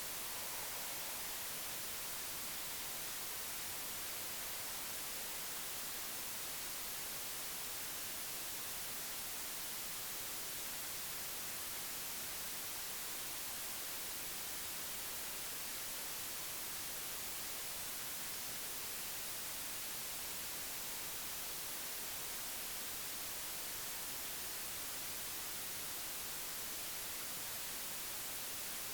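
Steady hiss of static, strongest in the highs, with no other distinct sounds.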